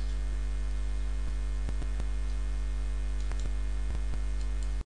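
Steady electrical mains hum with several evenly spaced tones, with a few faint scattered clicks; it cuts off suddenly near the end.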